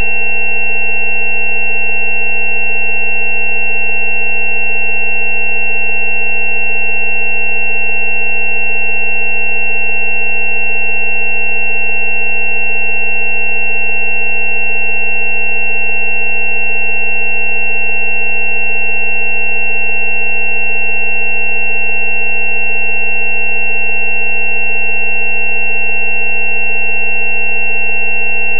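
A continuous, unchanging chord of pure electronic tones from a frequency-therapy track, including a low 190 Hz tone, with a high-pitched tone on top the loudest.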